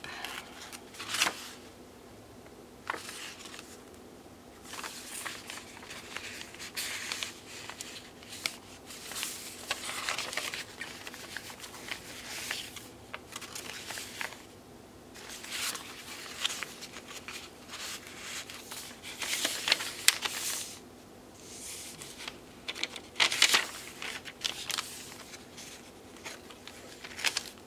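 Paper rustling and crinkling in irregular bursts as the paper pages, tags and inserts of a handmade junk journal are turned and handled, with a few light taps.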